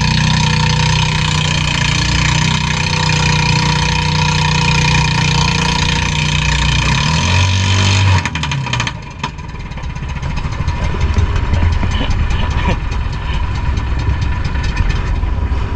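Boat engine running steadily. About eight seconds in the sound drops and changes, and a rougher, noisier engine rumble with wind on the microphone carries on.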